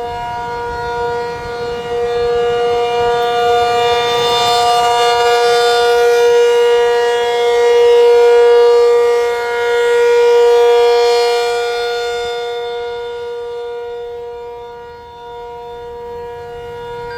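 Whelen Penetrator-50 outdoor warning siren sounding the steady Alert signal: one held pitch with many overtones. Its loudness swells and fades as the rotating head sweeps toward and away, loudest around the middle and dipping shortly before the end.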